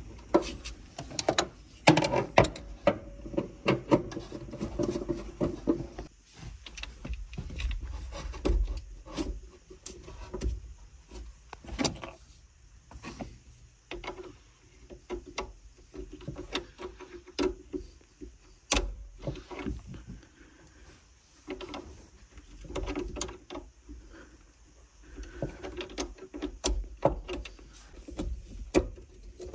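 Irregular clicks, knocks and rattles of hands and tools working on the car battery's terminal clamps, fitting and tightening the connections.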